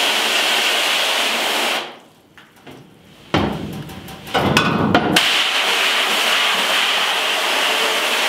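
Garden hose with a pistol-grip spray nozzle spraying water onto a screen-printing screen to rinse off ink and ink remover. The spray stops about two seconds in. A few knocks follow, then a short, lower splashing stretch as the screen is turned around, and the spray comes back on steadily about five seconds in.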